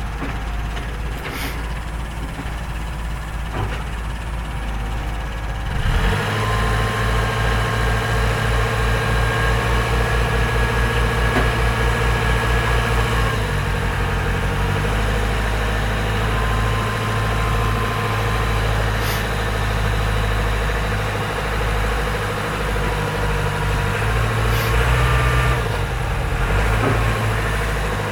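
Diesel engines of an excavator and a bulldozer running. About six seconds in they climb to a louder, higher working pitch as the machines take load, then shift pitch a couple more times.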